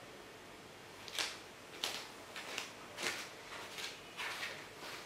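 Faint shuffling footsteps and rustling as a person walks up and settles in at a table, a series of soft, short scuffs about one to two a second, starting about a second in.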